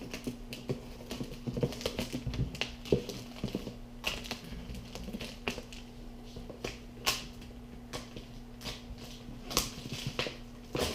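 Cardboard shipping box being slit open with a Gerber knife and its flaps and packing handled: irregular clicks, scrapes and rustles over a steady low hum.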